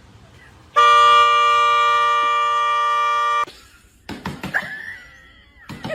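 A loud, steady horn-like blare of several tones sounding together, starting about a second in and cutting off sharply after nearly three seconds. Short, scattered squeaky sounds follow.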